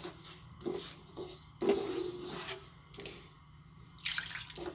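Water poured from a glass into a simmering pan of tamarind chutney, splashing in two pours, about one and a half seconds in and again near the end, with a wooden spatula moving in the pan.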